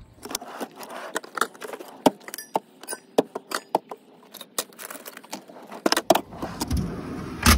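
Keys and small metal parts jangling, clicking and knocking as they are handled. Near the end comes a short steady rush that ends in a sharp click.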